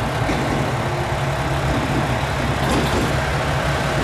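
KiHa 281 series diesel express train running: a steady low diesel engine drone under wheel and rail noise.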